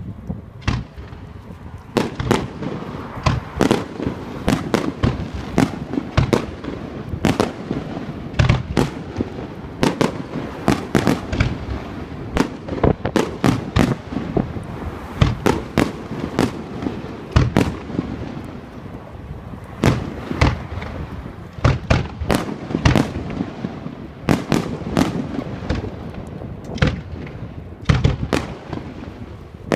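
Aerial fireworks display: shells bursting in quick succession, several sharp bangs a second over a low rumbling of booms, getting much busier about two seconds in.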